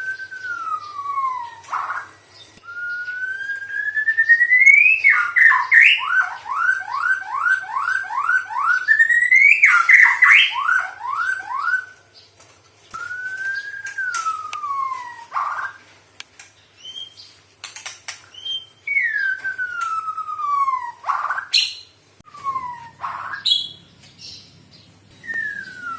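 White-rumped shama (murai batu) mimicking a police siren: long falling and rising whistled glides and a run of quick repeated upward sweeps, about two a second, like a siren's yelp, broken by sharp clicks and short call notes.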